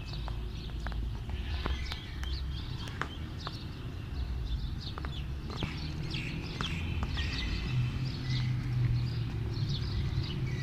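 Small birds chirping continually, with scattered sharp clicks and a low rumble underneath; a steady low hum joins in for a couple of seconds near the end.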